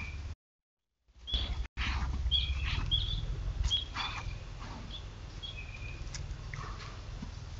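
Short, high chirps from a small bird, a dozen or so scattered irregularly, over a steady low hum. The sound cuts out completely for under a second near the start, where one trail-camera clip ends and the next begins.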